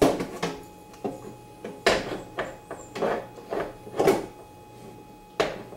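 Bread pan knocking and scraping against the inside of a West Bend bread machine as it is fitted into the machine. The knocks are irregular, about ten of them, with the loudest around the middle.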